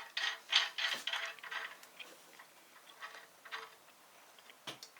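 Light metallic clicks and rattles as a valve spring compressor tool and valve spring parts are handled and fitted on a 4G63 cylinder head. They are busiest in the first two seconds, then thin out to a few single taps.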